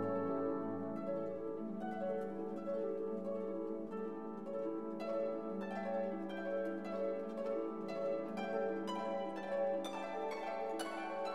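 Background music: plucked string notes, harp-like, over held lower tones, the plucked notes growing busier in the second half.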